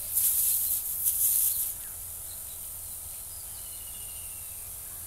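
Pesticide spray from a high-speed spray pump hissing unevenly through the wand nozzle as it hits the mango foliage, stopping just under two seconds in. After that there is a steady quiet background with a few faint high chirps.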